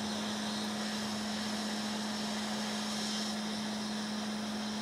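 Hot air rework station's blower running steadily: an even rush of air with a steady low hum. It is heating a board's MOSFET to melt the solder for removal.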